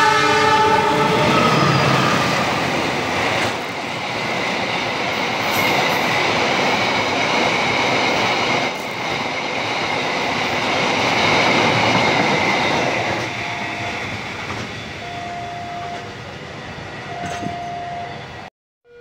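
Cement freight train passing at speed. The diesel locomotive's horn cuts off about a second in, then the loaded covered wagons run past with a steady rumble and wheel clatter, and a thin high whine over it through the middle. The noise fades near the end, where a short repeated tone sounds a few times.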